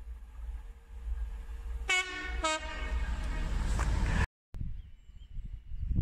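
A train's two-tone horn gives two short toots about two seconds in, over the rumble of an approaching train that grows louder. The sound breaks off suddenly a little over four seconds in, after which a lower rumble carries on.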